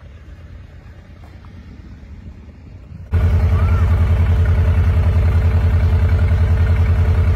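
Narrowboat engine running: at first only a faint low rumble, then about three seconds in it becomes abruptly loud, a steady, rapid, even beat close to the microphone.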